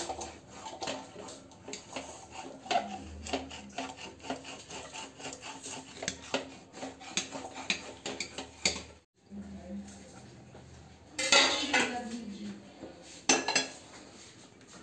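Metal ladle stirring thick sarson da saag in a stainless-steel pot, scraping and clinking against the pot in quick, irregular strokes. After a short break, two louder metal clanks, as a steel plate lid is set on the pot.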